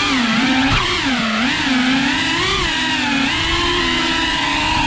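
FPV drone's electric motors and propellers whining, the pitch swooping up and down every half second or so as the throttle changes through tight turns.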